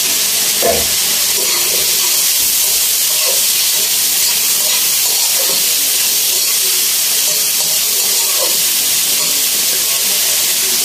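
Chopped meat frying in a wok, a steady hissing sizzle, with a spatula stirring it through the pan.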